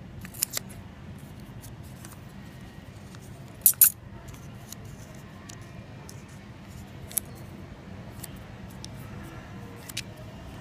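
Steel scissors snipping a shiny foil candy wrapper and the foil crinkling between fingers: a handful of sharp clicks, the loudest a quick pair about four seconds in, over a faint low hum.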